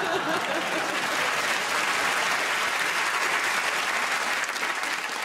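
Studio audience applauding, with some laughter at the start; the clapping holds steady and eases slightly near the end.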